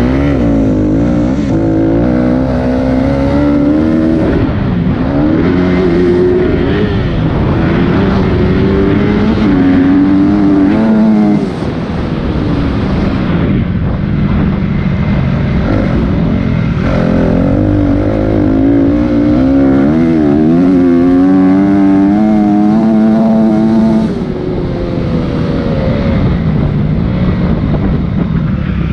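Dirt bike engine revving up and falling back over and over as the bike accelerates along the track, heard from a helmet-mounted camera. The revs drop off sharply about a third of the way in and again later on, then climb again.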